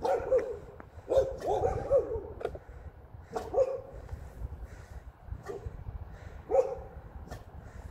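Wolfdog puppy giving short, high whining yelps and barks: a few right at the start, a run of them about a second in, then single ones near the middle and later. Wind rumbles on the microphone underneath.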